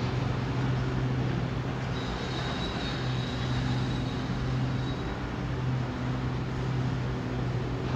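Engine of heavy demolition machinery running steadily at one pitch over a bed of site noise. A faint high whine joins in about two seconds in and fades out after a few seconds.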